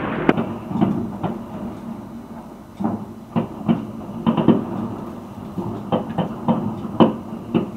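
Fireworks going off across the city: irregular sharp bangs at uneven intervals, some louder than others, over a steady low rumble of trams passing below.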